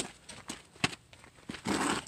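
A few footsteps on dirt and gravel, about half a second apart, then a brief rustle near the end.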